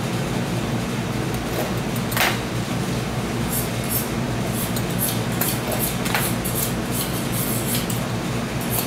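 A steady mechanical hum, with scattered short clicks and rustles as a fresh pasta sheet is handled and cut with a pastry wheel on a cutting board; the clearest click comes about two seconds in.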